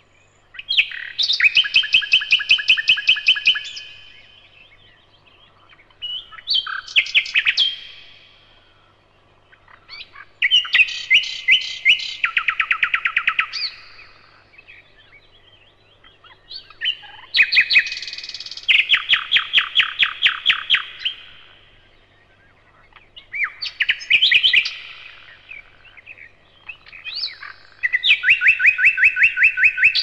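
Common nightingale singing: six separate song phrases, each a couple of seconds of rapidly repeated notes, with short pauses between phrases.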